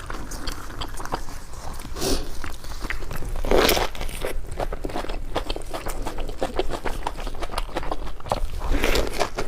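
A person biting and chewing crunchy food, with many small crunches and clicks and two louder bursts, one about four seconds in and one near the end.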